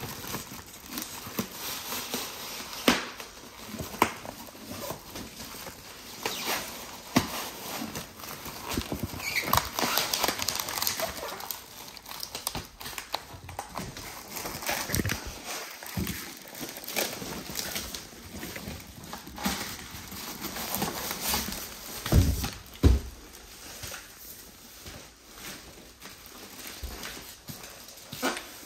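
Cardboard box and styrofoam packing scraping and rustling as exercise-bike parts are worked out of a snug box, with scattered knocks and two heavier thumps about 22 seconds in.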